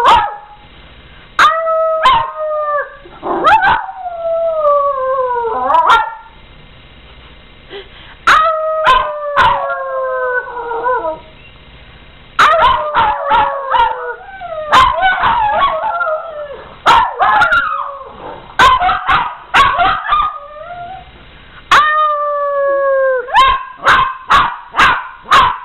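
Small pet dogs howling in bouts of long, falling-pitch howls, sometimes several voices at once, mixed with sharp yips and barks, with short pauses between bouts.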